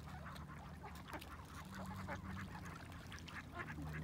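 A flock of ducks on the water calling softly, a steady scatter of many short, quiet quacks and chatter.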